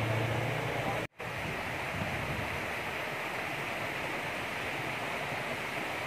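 Steady rushing of a tall waterfall pouring onto rock. A low hum under it in the first second stops at a brief silent gap about a second in.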